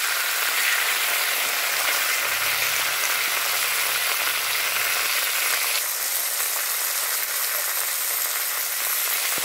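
Chopped carrot, capsicum, beans, onion and green chillies sizzling as they fry in hot mustard oil in a metal kadai. It is a steady hiss that gets slightly softer about six seconds in.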